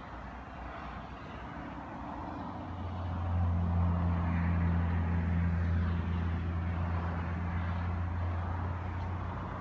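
A motor vehicle's engine running with a steady low hum that swells about three seconds in, holds, and eases slightly near the end.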